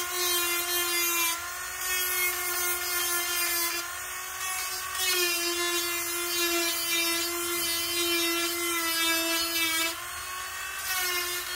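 Cordless Bosch rotary tool running with a steady high whine, its sanding drum grinding at the steel nubs inside a bicycle cog's bore to open it up. The grinding hiss comes in passes, lifting off briefly three times while the motor keeps running, and the drum is making little headway on the hard steel.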